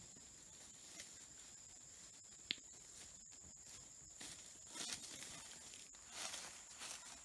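Faint rustling and handling noises with one sharp click about two and a half seconds in, over a steady high-pitched hiss.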